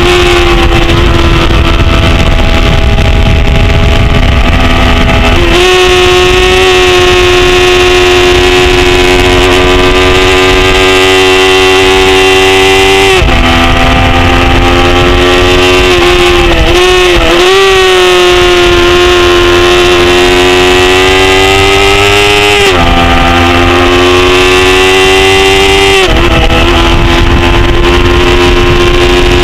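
A 250 cc production racing motorcycle's engine running hard at high revs, heard from an onboard camera with wind rush underneath. The pitch climbs steadily and then drops sharply at several gear changes, and wavers briefly about halfway through.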